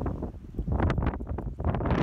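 Wind buffeting the microphone: a low rumble with rough gusts that surge about a second in and again near the end.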